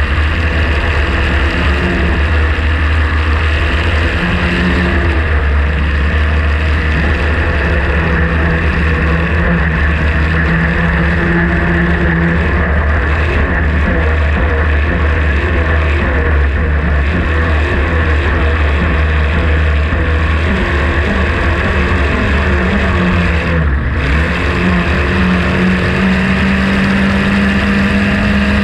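Vintage racing hydroplane's engine running at speed, heard from on board with the rush of wind and spray. Near the end the engine briefly eases off, then its pitch climbs back up.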